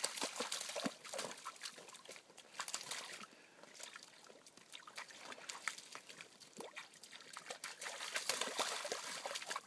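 Vizslas wading through shallow muddy puddle water: a patter of small splashes and squelches from their paws. It thins out about three and a half seconds in and picks up again near the end.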